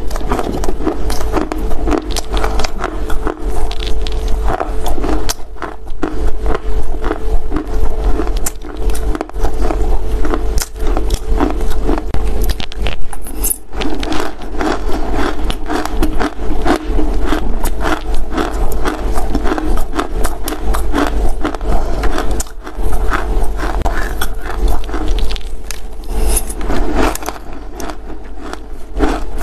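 Close-miked chewing of crunchy Chinese loess (baked clay earth): dense, continuous crunching and gritty crackling, with a faint steady hum underneath.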